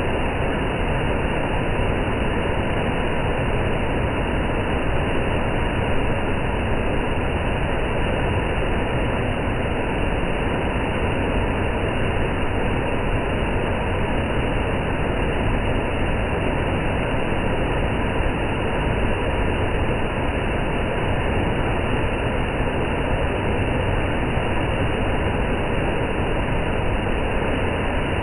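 Steady rushing noise of a waterfall, even and unbroken throughout.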